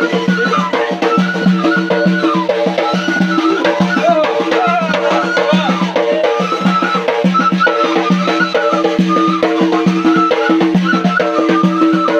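Chaoui traditional music: a gasba reed flute playing a wavering melody over held low notes, with a bendir frame drum beating a steady, dense rhythm throughout.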